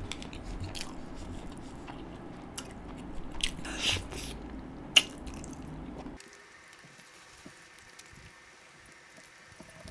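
Close-miked eating sounds of a man chewing butter chicken and rice: wet chewing and lip smacks, with one sharp smack about five seconds in. After about six seconds the sounds drop to faint chewing.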